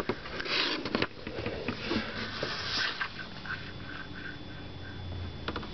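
Plastic night light being handled: a sharp click at the start, likely its mode switch being slid, then rubbing and scraping noises as it is turned over and set down.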